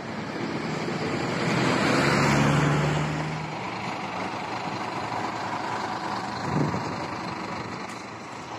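A large vehicle's engine running close by, such as a bus, growing louder to a peak about two to three seconds in and then easing off over steady road traffic noise.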